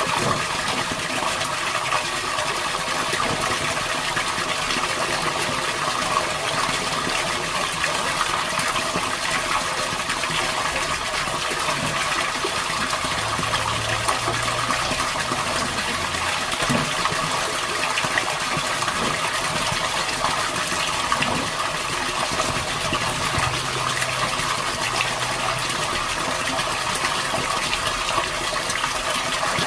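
Steady rush of gushing water as groundwater is pumped out of the excavation and pours from the discharge.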